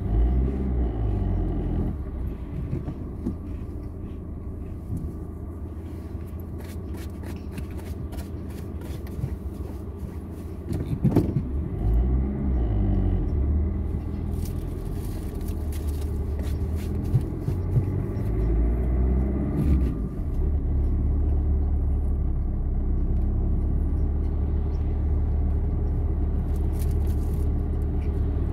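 Car engine and road noise heard from inside the cabin while driving in traffic. The engine note climbs and drops a few times as the car speeds up and shifts, then settles into a steadier, louder drone for the last third. A short click comes about eleven seconds in.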